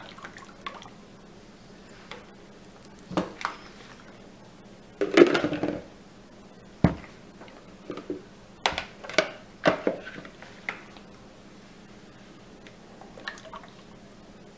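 Plastic mixing bowls and a pot being handled while soap batter is poured and divided among them: scattered knocks and clatter, with a longer, louder stretch about five seconds in and a run of sharp clicks a little later.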